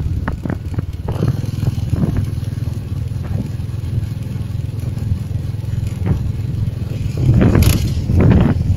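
Steady low rumble of a vehicle's engine and tyres while driving along a paved road, with a few louder rough rushing surges near the end.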